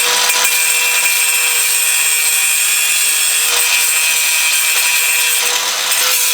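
Angle grinder running continuously with a steady high whine, grinding down the cracked steel motor-mount tabs on a scooter frame ahead of welding.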